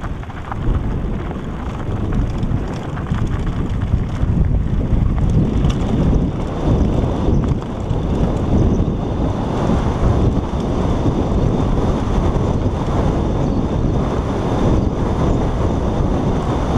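Wind buffeting the helmet camera's microphone on a fast mountain bike descent, with the tyres rumbling and rattling over a loose gravel dirt track. It grows louder a few seconds in as the bike picks up speed.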